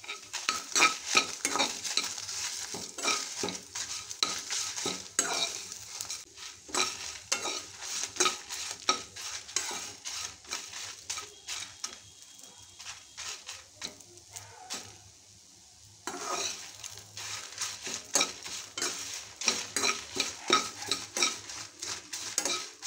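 Perforated metal spatula stirring and scraping dried red chillies and whole spices around a metal kadai, with a light sizzle as they roast in a little oil. The stirring eases off for a few seconds past the middle, then picks up again.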